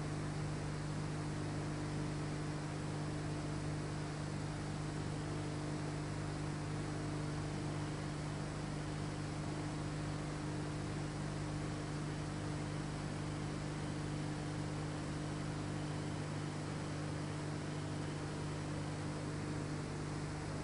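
Steady electrical mains hum over a constant hiss, unchanging throughout, with no distinct knocks or scraping above it.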